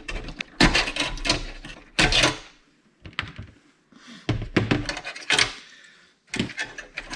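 Clicks, knocks and rattles of the receipt printer's small metal and plastic parts and wiring being handled, in about five short bursts.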